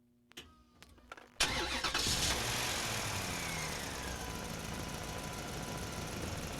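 A few clicks, then about a second and a half in an engine starts abruptly and keeps running steadily. A whine in it falls in pitch over the next couple of seconds.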